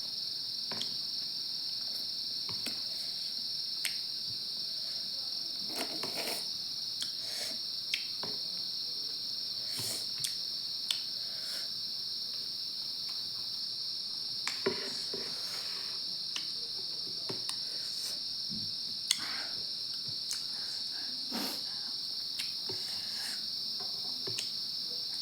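Crickets chirping in a steady, high-pitched drone, with scattered short clicks and smacks of someone eating close by.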